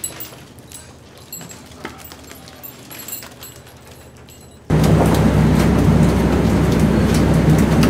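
Quiet scattered clicks and taps, then, a little past halfway, a sudden change to the loud steady drone of a commercial fishing boat's engine, heard on deck with a rushing noise over it.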